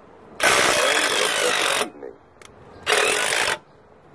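Cordless power tool working on the exhaust header fasteners in two bursts, a long one about half a second in and a short one about three seconds in.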